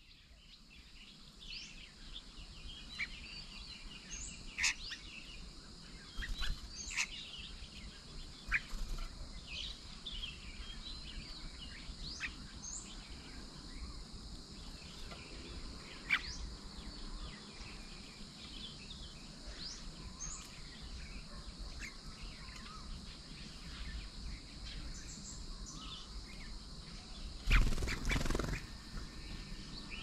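Small birds chirping and calling in short scattered notes over a steady high-pitched background drone, with a brief loud rustle near the end.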